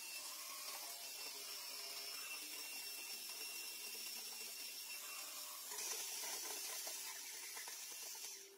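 Steady hiss with a faint high whistle, growing brighter and a little louder for a couple of seconds near the end, with a few light clicks.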